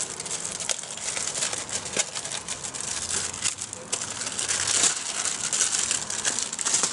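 Plastic packaging crinkling and rustling as it is handled: the bag of a new engine-casing gasket.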